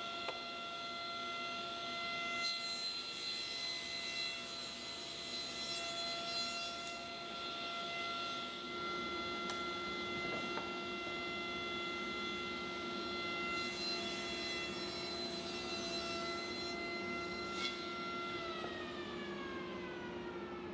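Table saw running with a steady whine while crosscutting pine door rails to length, with two passes through the wood about 2.5 and 13.5 seconds in. Near the end the whine falls in pitch as the saw is switched off and the blade spins down.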